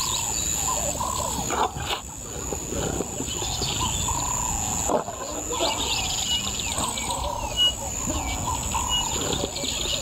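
Male lions growling as they feed on a zebra carcass, with a few sharp clicks. A steady high insect drone runs underneath, and short repeated bird chirps come in the second half.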